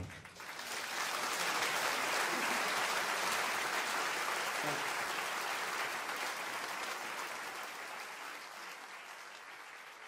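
Audience applauding at the end of a piano song. The clapping swells within the first second, holds, and then slowly dies away.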